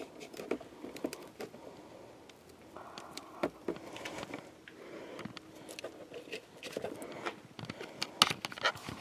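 Irregular small clicks, taps and light rattles of hard plastic and metal parts being handled: the power sliding door's cable spool kit worked by hand as its pins are pulled to free the cable.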